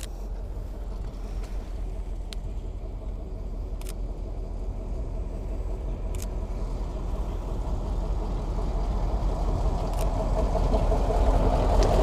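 A motor vehicle's engine noise, low and steady, growing gradually louder as it approaches, with a few sharp clicks.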